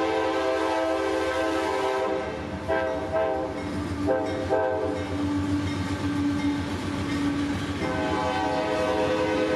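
CSX freight locomotive's air horn blowing a sustained chord in long blasts with a few short breaks, over the low rumble of the passing locomotives and freight cars.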